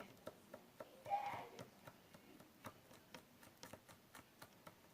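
Slime being kneaded by hand, giving off faint irregular clicks and pops, several a second, as pink dye is worked into it. About a second in there is a brief hummed note.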